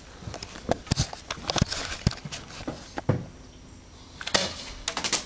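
Footsteps crunching through leaf litter and twigs, with gear rattling: a series of irregular sharp crunches and thumps.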